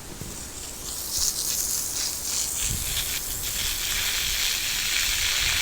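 Strong wind gusting: a hissing rush that swells about a second in and holds, with low buffeting on the microphone.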